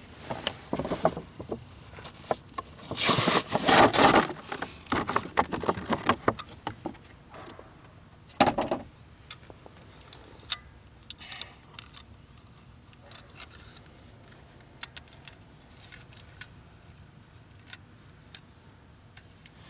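A new car door handle's packaging being opened: rustling and crinkling in loud bursts for the first eight seconds or so. Then scattered light clicks and taps as the part is handled.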